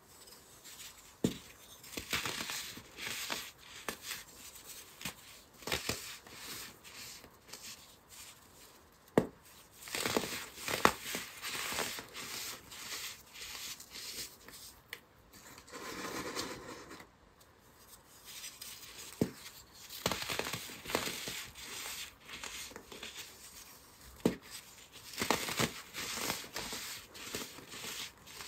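Hands crumbling and squeezing clumps of crushed soap mixed with baking soda: irregular soft crunching and crackling in bouts, with a few sharp snaps and a softer powdery hiss about midway.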